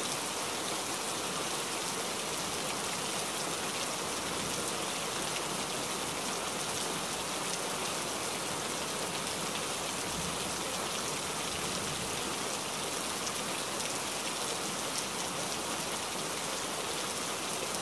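Steady rain: an even hiss with the ticks of single drops mixed in.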